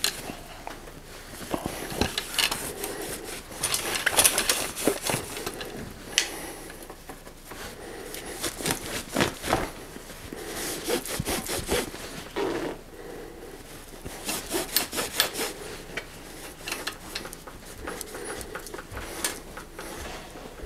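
Cloth rag rubbing over a bicycle frame in irregular wiping strokes, polishing off sprayed furniture polish, with a few light knocks.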